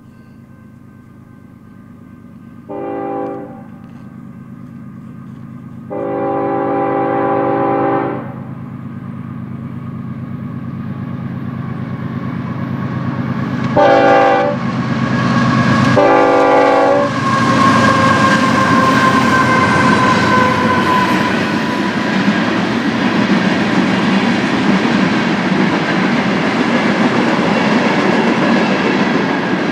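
Union Pacific diesel freight train approaching with its horn sounding four blasts, the second the longest. The locomotive engine drone grows louder until the train passes close by, and then the cars roll past with a steady clickety-clack of wheels on the rail.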